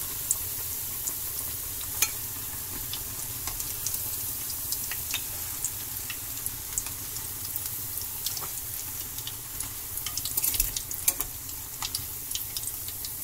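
Shrimp-and-cheese fritters shallow-frying in hot oil: a steady sizzle with scattered pops and crackles, busier about ten seconds in.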